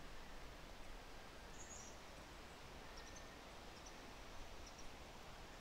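Faint outdoor ambience: a steady low hiss with a few brief, high bird chirps scattered through.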